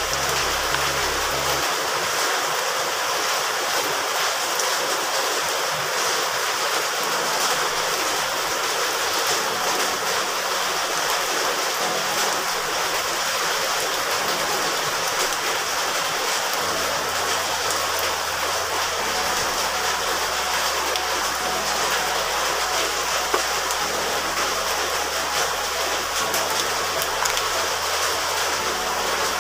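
Steady hiss of rain, with soft low notes of background music underneath.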